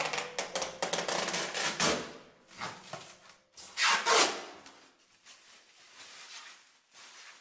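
Protective plastic film being peeled off kitchen cabinet doors: crinkling and rustling plastic, with loud pulls about two seconds in and about four seconds in, fainter toward the end.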